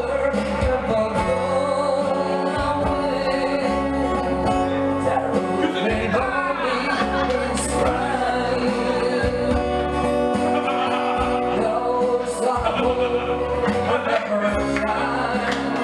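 A man singing into a microphone, accompanying himself on acoustic guitar.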